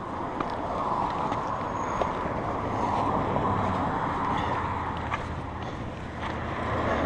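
Steady rushing of wind and tyres on a mountain bike rolling downhill, swelling and easing slowly, with a few small clicks and rattles from the bike.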